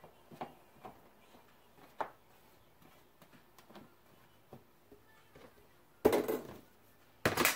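Kitchen prep with eggplant: a few light knocks of a knife and slices on a plastic cutting board and metal baking sheet, then two louder clattering scrapes about six seconds in and near the end as the metal baking sheet is moved on the counter.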